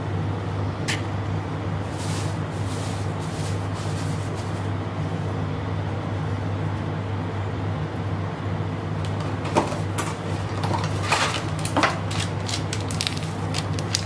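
A steady low hum throughout. In the last few seconds come scattered light clicks and taps from handling the spice and sprinkling chaat masala over the yogurt-topped dish.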